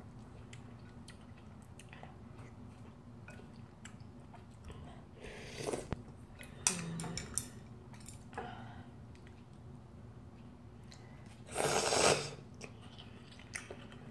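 Quiet mouth sounds of eating ramen noodle soup, with a few short clicks of utensils around the middle and one loud slurp about two seconds before the end.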